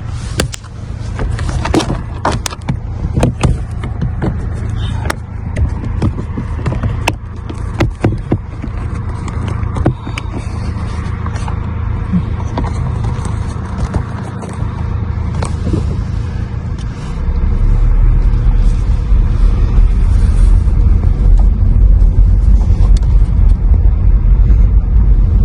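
Car moving slowly, heard from inside the cabin: a steady low rumble of engine and tyres with scattered sharp clicks and knocks, the rumble growing markedly louder about two-thirds of the way through.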